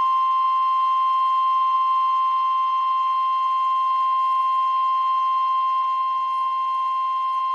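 NOAA Weather Radio warning alarm tone: a single steady, unbroken tone, the alert that comes before a warning message is read.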